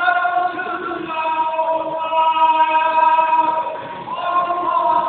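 Singing of an Ashura mourning chant in long held notes. The melody moves to a new note about a second in and again about four seconds in.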